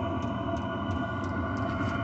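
Chinese diesel air heater running steadily just after lighting, a constant combustion rumble with a steady fan whine. Its exhaust runs through a straight pipe with no muffler.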